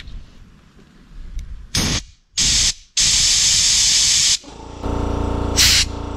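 Compressed-air blow gun blasting air through the passages of a Suzuki K90's carburetor body to clear clogs: two short blasts, then one lasting about a second and a half. From about the fifth second a steady hum sets in, with two more short blasts over it.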